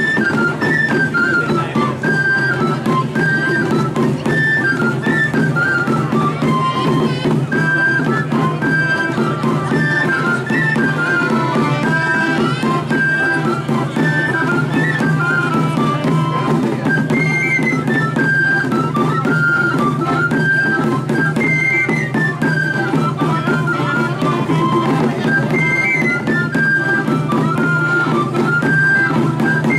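Traditional Catalan street music for a giants' dance: a quick, high wind-instrument melody over drumming, played without a break.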